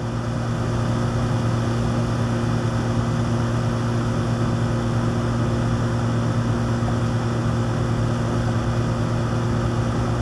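Steady machine hum of a motor running at an even speed, with a low drone that does not change.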